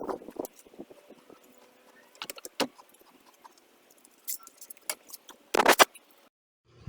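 Scattered light clicks and taps of small hard parts being handled, with a short loud burst of rattling near the end, then the sound cuts off abruptly.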